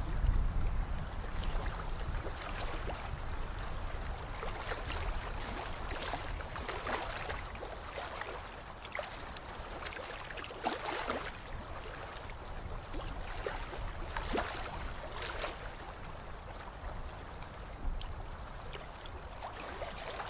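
Water lapping and trickling around a slow-moving ride boat in its channel, over a low steady rumble, with scattered small splashes and drips.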